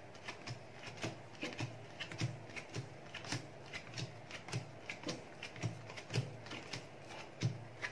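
Playing cards dealt quickly one at a time onto three piles on a paper-covered table, each card landing with a light slap, about three a second in an even rhythm.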